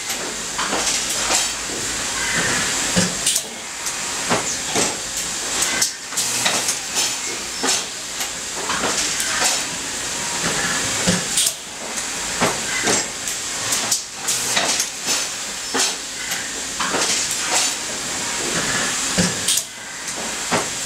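Automated plastics-processing machine cycling: a steady hiss of air with frequent sharp clacks and short blasts of air, often more than one a second, as its tooling moves.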